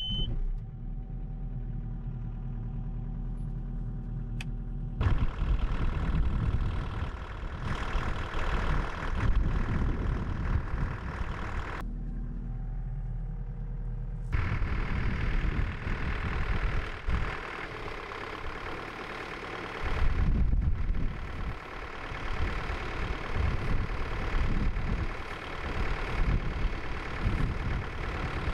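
Excavator's diesel engine running: first a steady hum, then louder and rougher. The sound changes abruptly a few times, as between separate shots.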